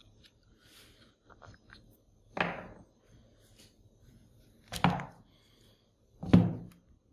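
Three hard knocks while the rusty angle grinder's housing and parts are handled during disassembly. The knocks come roughly two and a half and then one and a half seconds apart, the last one the loudest, with faint handling clicks between.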